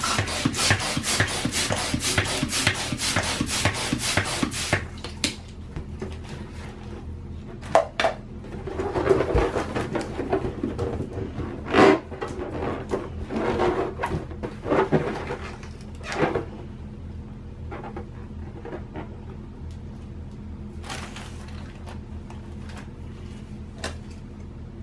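Hand balloon pump inflating a round latex balloon, a fast even run of air-pushing strokes for about five seconds. Then latex balloons rubbing and squeaking against each other and against hands as they are handled and twisted together, followed by quieter handling.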